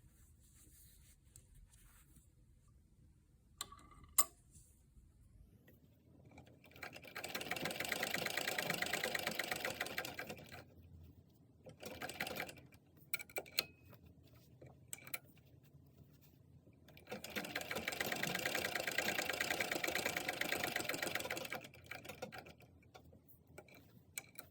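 Sewing machine stitching fabric in two runs of about four seconds each, with a short burst between them and a few sharp clicks before the first run.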